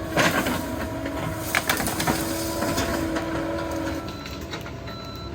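Cat 308 mini excavator's diesel engine running steadily while it clears brush and rock on a steep slope, with several sharp cracks and knocks in the first couple of seconds.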